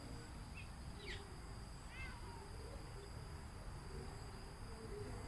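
Quiet rural outdoor ambience: a steady high insect drone, typical of crickets, with a few faint short chirps about one and two seconds in.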